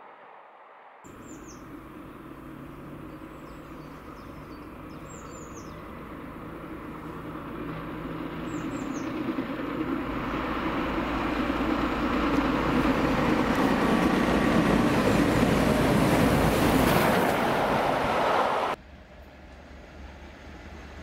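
Steam locomotive approaching through a station with a train, getting steadily louder for about fifteen seconds, while small birds chirp in the first several seconds. Near the end it cuts off abruptly to the quieter sound of another train in the distance.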